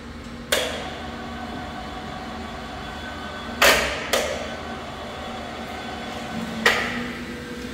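Four sharp metallic clanks, each ringing on briefly, over a steady workshop hum: one about half a second in, two about half a second apart near the middle, and one near the end.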